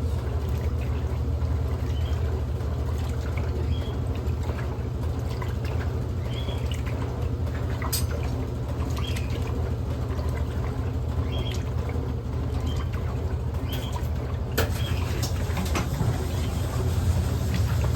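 Electrolux LM08A top-loading washing machine running with a load of towels: a steady motor hum under churning, sloshing water.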